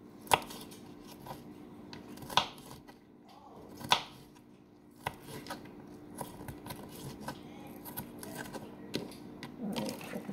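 Kitchen knife dicing red bell pepper on a wooden cutting board: sharp knocks of the blade through the pepper onto the board. Three loud cuts come a second or two apart, then a quicker run of lighter cuts, about two or three a second.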